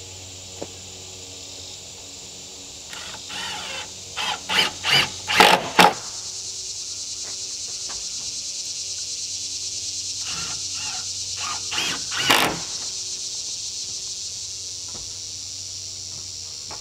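Steady, pulsing chorus of insects in summer woodland, with two clusters of short, sharp squeaks, about three to six seconds in and again around ten to twelve seconds.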